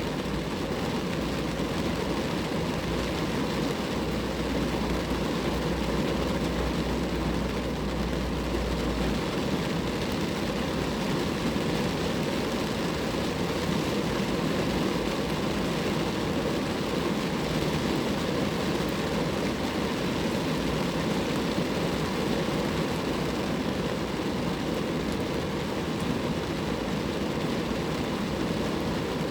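Steady rain falling on a car, a dense even patter with no let-up. A low rumble sits underneath for roughly the first nine seconds.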